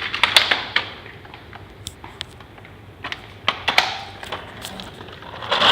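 Plastic clicks and clacks of a folding baby product's locks and adjusters being worked by hand, in several bursts, the loudest near the start and near the end.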